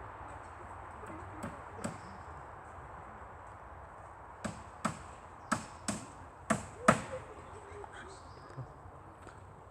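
Hammer blows, about eight sharp knocks coming in pairs roughly half a second apart, the strongest near the end of the run.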